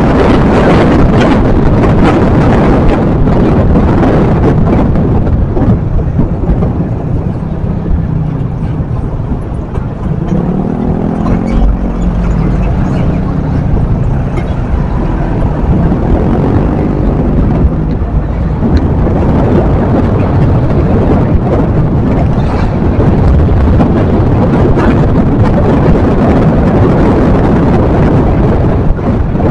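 Heavy wind rush over the microphone with a vehicle engine running underneath, its pitch rising and falling between about ten and eighteen seconds in.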